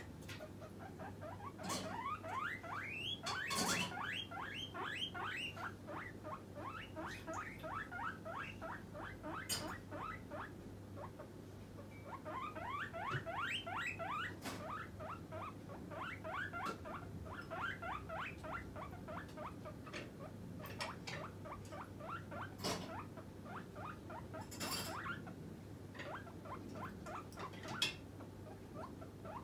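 Guinea pig wheeking: long runs of short rising squeaks, several a second, the begging call it gives when hungry and wanting food or treats. A few sharp clicks break in among the squeaks.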